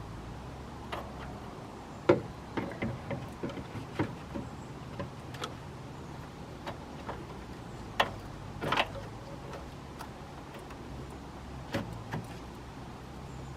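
Irregular clicks and small knocks from hand work on a plastic turn-signal and headlight unit, with sharp knocks about two seconds in and about eight seconds in.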